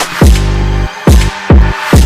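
Background electronic music with heavy bass drops and a steady hi-hat beat.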